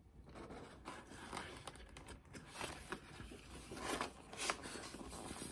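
Faint rustling and sliding of a picture book's paper page being turned by hand: a few soft swishes and scrapes, the clearest about four seconds in.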